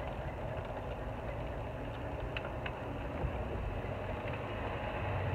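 Steady low background rumble with a few faint clicks a couple of seconds in, and a low hum coming in near the end.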